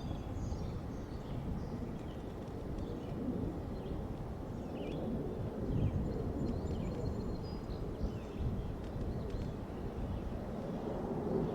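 Outdoor ambience: a steady low rumble of background noise with small birds chirping faintly, in short high calls throughout.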